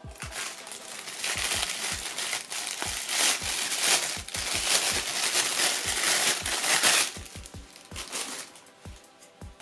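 Packaging being crinkled and rustled while a camera is unboxed, over background music with a steady bass pulse; the crinkling stops about a second before the end.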